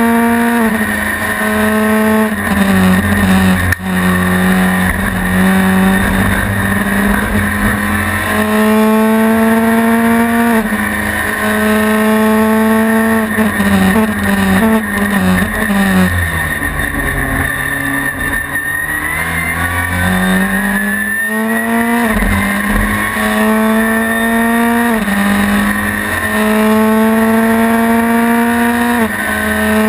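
Honda Civic TCR race car's turbocharged four-cylinder engine heard from inside the cockpit under hard acceleration. Its pitch climbs through each gear and drops back at every upshift. A little past halfway it falls away under braking, then climbs through the gears again.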